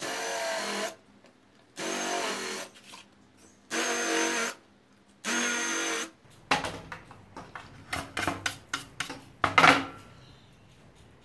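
Makita cordless driver running a countersink bit into plywood in four short bursts of under a second each, a steady motor whine with the cut. Then a run of sharp clicks and knocks.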